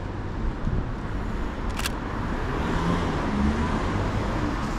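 City street traffic, with a vehicle passing about midway. A single sharp camera shutter click sounds a little under two seconds in.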